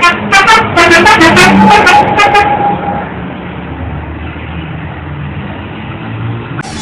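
Bus telolet horn, a multi-tone musical horn, playing a quick tune of short notes at several pitches that ends in a held note about three seconds in. After that there is steady background noise with no tune.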